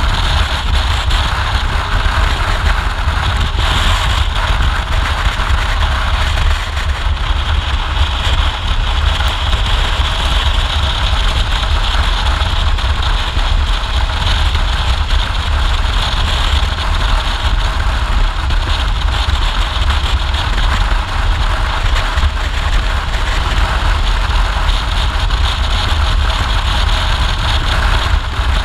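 Motorcycle riding at steady cruising speed: wind buffeting the microphone in a heavy low rumble over the engine and road noise.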